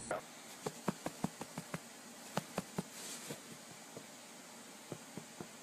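A brief kitten mew that cuts off at the very start, then faint, irregular soft taps, several a second for about three seconds and a few more near the end, over a low hiss.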